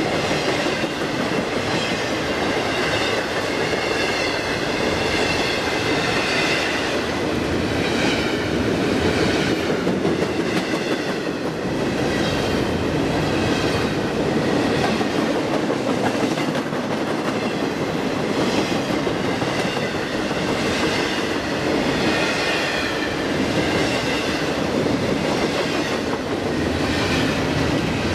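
Double-stack container train's well cars rolling past close by: a steady noise of steel wheels on the rails, with a wavering high ring above it.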